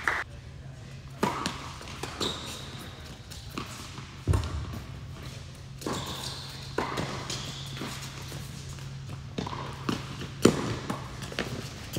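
Tennis rally on an indoor hard court: racket strikes on the ball and the ball bouncing, a string of sharp knocks about a second apart that echo in the hall, the loudest about ten seconds in.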